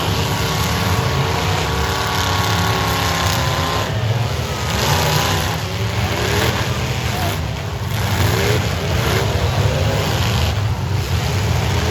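Demolition derby cars' engines revving hard over a steady low rumble, several engines at once, their pitch rising and falling again and again.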